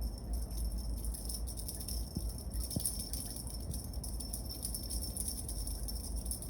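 Small jingle bell jingling rapidly and continuously, a bright, high-pitched metallic shimmer over a low steady hum.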